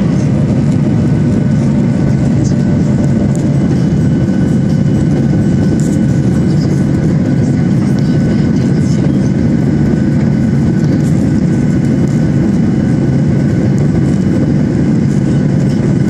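Cabin noise of a Boeing 737 climbing after take-off: the jet engines and the airflow make a steady, unchanging rush, with faint steady whining tones above it.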